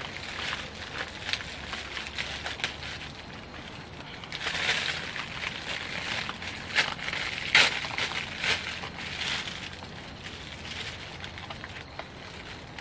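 Clear plastic food bag crinkling and rustling as it is handled, in uneven bursts with many small crackles, loudest through the middle.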